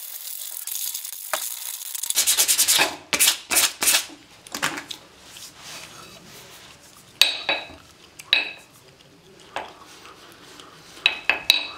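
Sandpaper rubbing on a steel hammer head clamped in a vise. A steady hiss of sanding runs for the first two seconds, then comes a burst of fast back-and-forth strokes. Later there are a few sharp, ringing metallic clinks: two about a second apart, and a quick cluster near the end.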